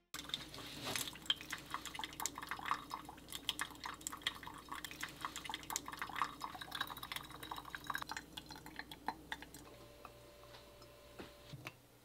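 Coffee dripping through a stainless steel mesh pour-over filter into a glass carafe: a quick, irregular patter of drops that thins out and quietens about ten seconds in.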